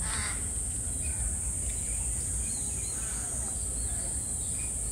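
Outdoor ambience: a steady high-pitched insect drone over a low rumble, with a short noisy burst at the very start and a few faint short chirps about halfway through.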